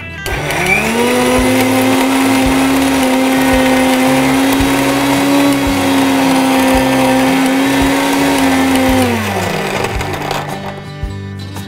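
Electric mixer-grinder grinding shallots, coconut and chilli powder into masala paste. The motor spins up just after the start, runs at a steady speed for about nine seconds, then winds down.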